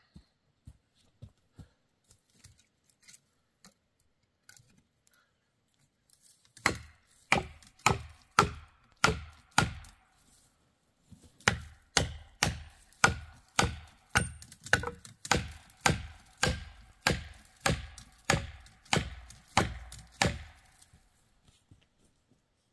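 Felling wedges being driven into a tree's back cut with heavy blows. Sharp strikes come about two a second in two runs, with a short pause between, and each blow has a faint ring.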